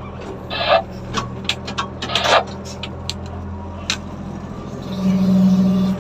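Heavy diesel engine of road-building machinery running at a steady note, with scattered sharp clicks and scraping in the first few seconds. The engine grows louder about five seconds in.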